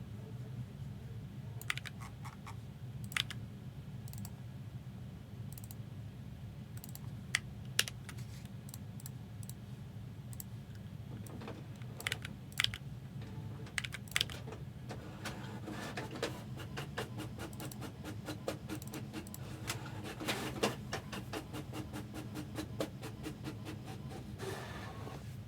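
Typing on a computer keyboard: a few scattered key clicks at first, then a rapid, continuous run of keystrokes through the second half, over a steady low hum.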